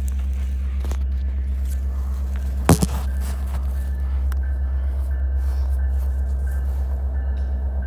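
Steady low engine rumble with a slight even pulsing, and a sharp knock about three seconds in as the phone is handled.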